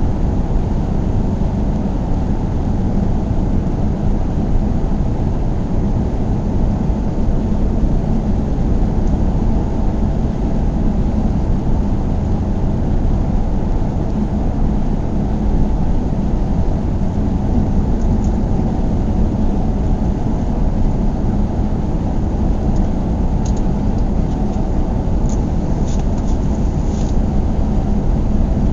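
A car driving steadily: continuous low road and engine noise, even throughout, with a few faint high ticks in the last third.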